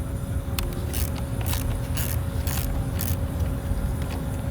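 Hand tool working on a bolt at the battery hold-down of a 2014 Chevy Malibu: about six short metallic scrapes and clicks, roughly every half second, as the bolt is unscrewed. Under them runs a steady low background rumble.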